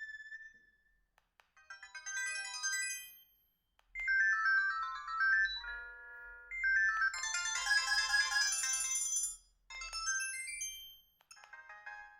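Binatone BB200 mobile phone playing its ringtones through its small speaker: a string of short electronic tunes, several notes at a time, each lasting a second or two before a short gap and the next tune. The loudest is around the middle.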